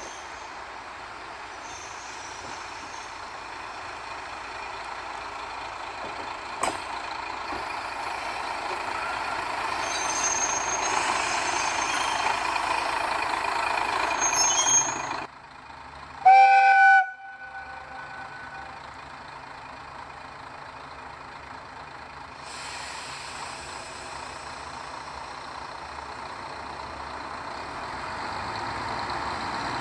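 Diesel railcar running on the line, its noise growing louder, then after a sudden break a single horn blast of about a second, the loudest sound; steady running noise follows.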